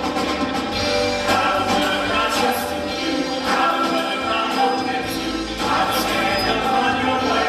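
Live church worship music: a man and a woman singing a gospel song into microphones over a full band with electric guitar and a steady bass.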